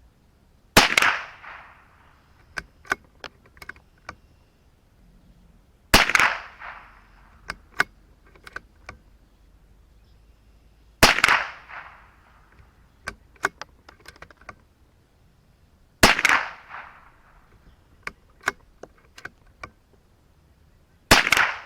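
Five shots from a CZ 457 bolt-action .22LR rifle firing Winchester 36gr copper-plated hollow points, evenly spaced about five seconds apart, each with a short ring-out. Lighter clicks and knocks fall between the shots.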